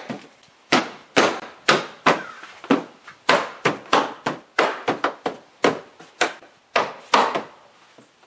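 Plastic liftgate trim panel of a 2017 Honda CR-V being knocked into place by hand, a long series of sharp knocks about two to three a second as its retaining clips are snapped home.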